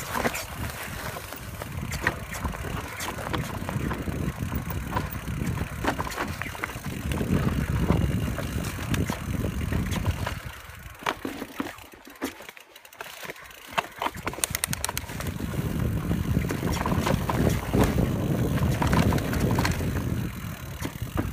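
Wind buffeting a chest-mounted phone's microphone on a fast mountain-bike descent, with tyres running over dirt and frequent clicks and rattles from a Canyon Spectral full-suspension mountain bike over bumps. The rush eases for a few seconds a little past the middle, then builds again.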